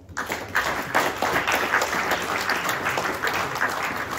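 Audience applauding, breaking out suddenly just after the start and easing off slightly toward the end.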